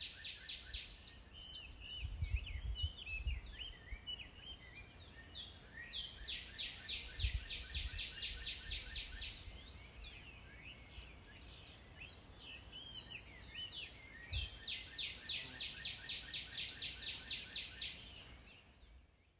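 Several wild birds singing, with rapid runs of repeated chirps and trills, over a steady high-pitched hum. A few low rumbles, and the sound fades out near the end.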